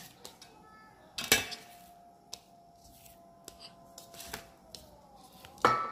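Kitchen handling sounds of cookware and utensils: two sharp knocks, about a second in and near the end, with scattered lighter clicks between them. A faint held tone follows the first knock and dips slightly near the end.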